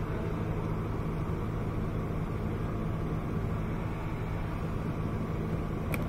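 A steady low mechanical drone, with one sharp click near the end.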